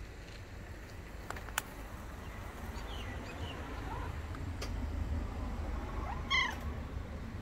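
Domestic cat meowing: a couple of faint calls a few seconds in, then one short, louder meow near the end.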